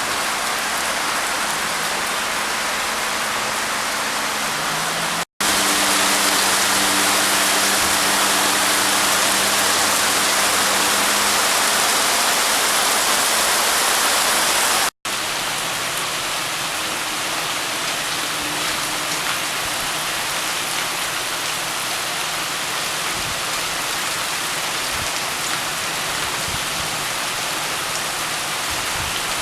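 Heavy thunderstorm rain falling in a steady hiss. It comes in three stretches, each cut off by a brief dropout at about 5 and 15 seconds in, and the middle stretch is a little louder.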